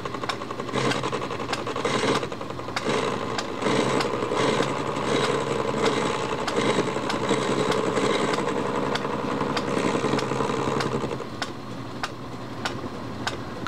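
Metal lathe running with an insert tool turning a shoulder on a large steel-looking disc, a steady machining sound with a regular ticking. The cut eases off about eleven seconds in.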